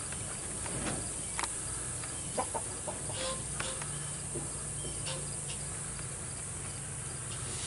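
Steady outdoor chorus of insects, with a few faint clicks scattered through it. A low hum comes in about halfway and stops near the end.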